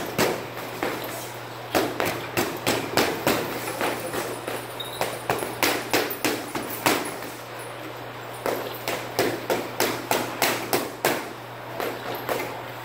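Boxing gloves smacking into focus mitts: sharp slaps in quick combinations of several punches, with short pauses between combinations. A steady low hum runs underneath.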